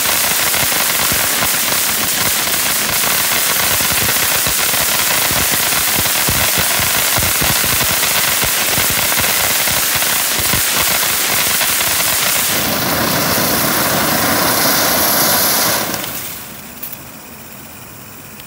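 Black Cat Demo Derby consumer fireworks cake firing, a dense continuous crackling of many tiny rapid pops from crackling stars. It grows fuller about two-thirds of the way through, then dies away in the last few seconds with one last small pop.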